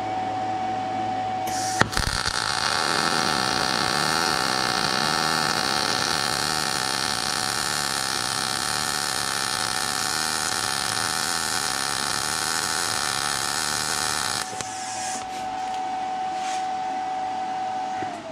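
Gas-shielded MIG welder laying a bead on steel plate with 75% argon / 25% CO2 shielding gas. The arc strikes with a sharp click about two seconds in, runs as a loud steady hiss for about twelve seconds, then stops. A steady high whine is heard before the arc and again after it, falling away near the end.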